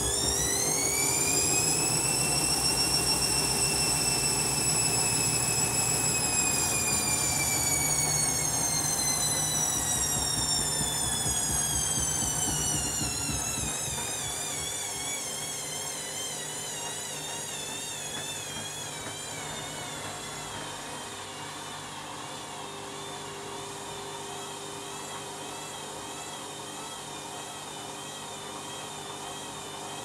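Candy front-loading washing machine spinning its drum: the motor's whine climbs to speed in the first couple of seconds and holds there for a few seconds. It then winds down over about fifteen seconds, the whine falling steadily in pitch and getting quieter, and goes on with a faint wavering hum at low speed.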